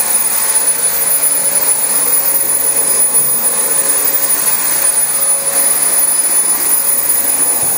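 Dyson DC25 upright vacuum cleaner running steadily on thick new carpet, its motor giving a constant rushing noise with a high, thin whine on top.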